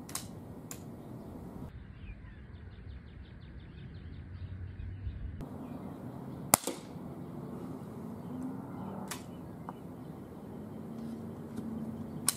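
A single rifle shot about six and a half seconds in, sharp and brief, with a few fainter clicks at other moments.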